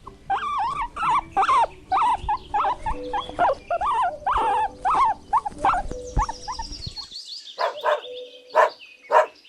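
Guinea pig squeaking: a quick run of short squeaks that rise and fall in pitch for about seven seconds, then a few fainter sounds near the end.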